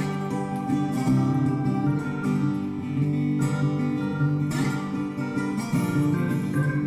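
Acoustic guitar background music.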